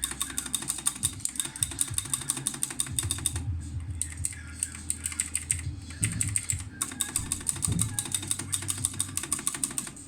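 Fast typing on a Razer BlackWidow X Chroma mechanical keyboard fitted with double-shot PBT keycaps: a rapid run of key clicks, broken by two short pauses.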